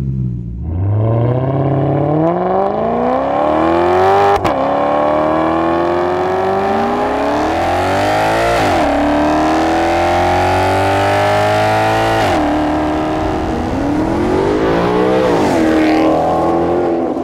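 Maserati GranTurismo V8 engine accelerating hard through the gears. The revs climb steadily and drop sharply at each upshift, about four times.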